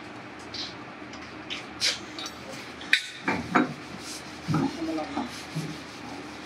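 Metal parts of a drill press spindle assembly clinking and knocking as they are fitted by hand, with a few sharp clinks about two, three and three and a half seconds in, over a steady low hum.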